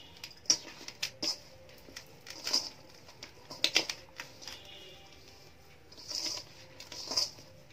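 Cooked rice being mixed by hand in a stainless steel bowl: soft, irregular rustling and squishing of the grains, with a few light clicks.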